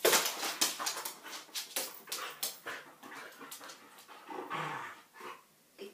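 Dog's claws clattering on a laminate floor as it runs and scrambles, a rapid, irregular run of clicks that is loudest at the start and thins out afterwards.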